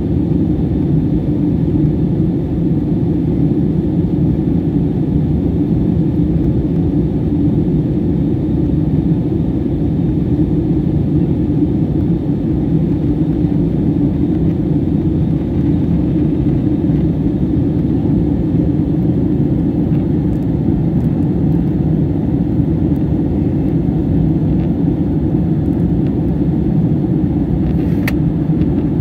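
Steady low roar of a jet airliner's cabin in flight: engine and airflow noise heard from inside by a window seat. A brief click sounds near the end.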